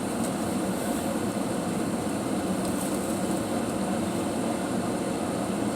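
Steady low hum of an idling vehicle engine and its air-conditioning fan, heard from inside the cabin.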